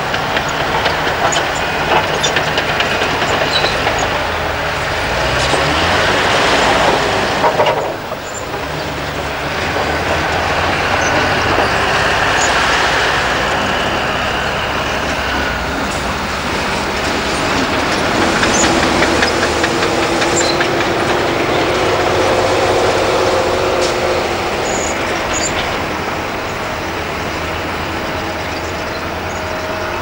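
Diesel earthmoving machinery working: a hydraulic excavator and a MAN dump truck running, with rock clattering and rattling into the truck's steel tipper body. The sound changes abruptly about eight seconds in.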